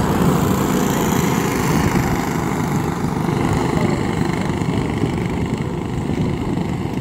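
The small engines of a pack of dirt-track racing karts running at speed together, a steady engine drone.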